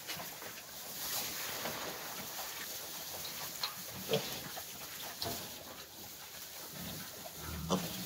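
Duroc piglets grunting and rustling in their straw bedding, with a few short sharp squeaks and a low grunting near the end.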